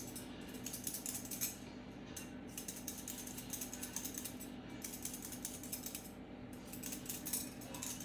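Potatoes being peeled by hand over a sink: a quick, continuous run of small scraping clicks from the blade across the potato skin.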